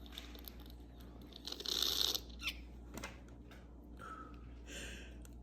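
A person sniffing menthol hard up a congested nostril: one sharp, hissing sniff about a second and a half in. A few small clicks and a softer breath follow near the end.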